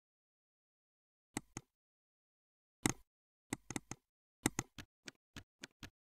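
A run of about a dozen short, sharp clicks at uneven spacing, coming faster toward the end, in otherwise dead silence.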